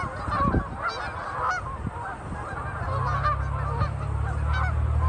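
A large flock of geese honking and calling at once, many overlapping short calls. A low steady drone comes in about three seconds in.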